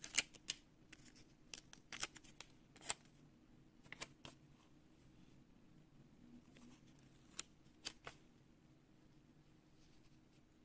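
Paper sticker handled, peeled and pressed onto an album page: a scatter of short, crisp paper clicks and crackles, most of them in the first three seconds and two more about seven to eight seconds in, with faint rubbing of fingers on paper between.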